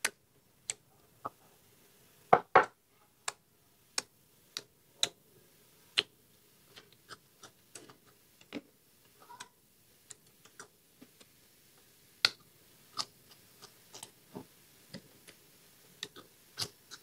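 Close-miked eating sounds: scattered, irregular crisp clicks and crunches of chewing meat and biting raw vegetable stalks, loudest as a pair about two and a half seconds in.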